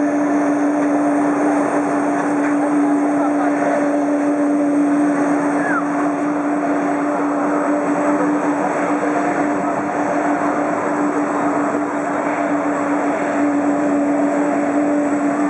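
Aircraft engines running steadily at a constant pitch: a strong, even hum over a dense rushing noise.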